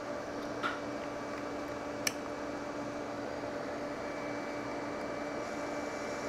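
Hot-air rework station blowing steadily with a faint hum, heating the solder under a plasma display driver chip so it can be pried off. Two small clicks come about a second and two seconds in.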